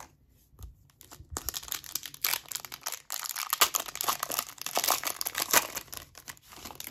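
Foil wrapper of an Upper Deck hockey card pack crinkling and tearing as it is ripped open by hand. There are a few scattered crackles at first, then a dense run of them from about a second in until just before the end.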